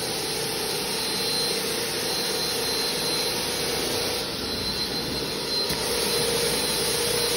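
Portable carpet-extractor vacuum running with a steady rushing whine while a stainless-steel extraction wand is drawn across wet carpet, sucking up the rinse water.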